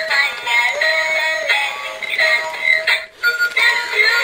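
Electronic dancing apple toy playing its built-in children's song, a synthetic-sounding singing voice over a simple melody, thin with no bass. The song drops out briefly about three seconds in.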